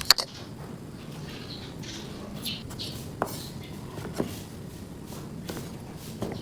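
Knife cutting sheets of homemade spinach egg noodle dough into chunks on a cutting board: a sharp knock at the start, then single knocks about a second apart. Birds chirp in the background.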